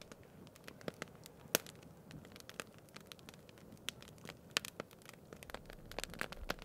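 Wood fire crackling in a steel fire ring: faint crackling with irregular sharp pops scattered through it.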